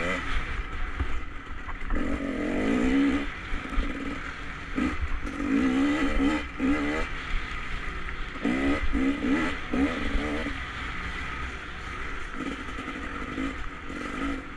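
Enduro motorcycle engine revving in repeated bursts as the throttle is opened and closed, its pitch sweeping up and down. It settles to a steadier, lower note for the last few seconds.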